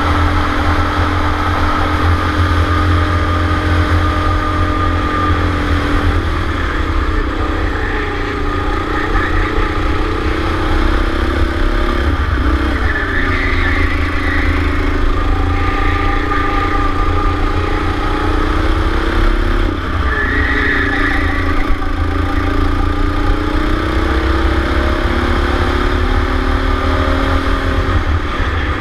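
Go-kart engine heard from onboard, running at high revs, its pitch dropping as the driver lifts off for corners about 6, 12 and 20 seconds in and climbing again on the throttle, over a heavy low rumble.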